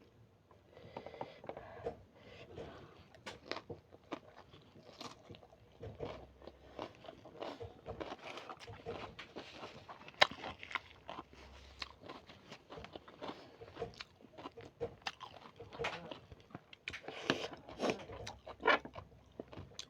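A person chewing and biting food close to the microphone: a string of short, irregular mouth clicks and smacks, with a sharper bite about halfway through and a busier patch near the end.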